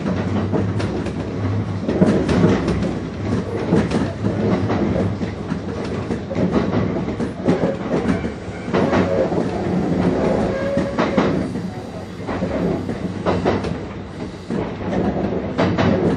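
Kintetsu Ikoma Line electric commuter train running, heard from just behind the driver's cab. A steady running noise, with the wheels clicking over rail joints at uneven intervals.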